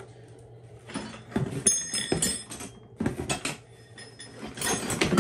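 Steel gears of a Honda B-series transmission's gear stacks clinking and knocking against each other as the shaft assemblies are handled and set down, in three short bursts, with a brief high metallic ring in the first.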